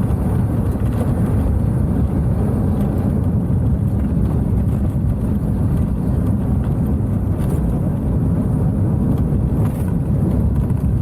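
A Boeing 727-200's three Pratt & Whitney JT8D jet engines running in reverse thrust during the landing rollout, a loud, deep, steady rumble heard from the cockpit.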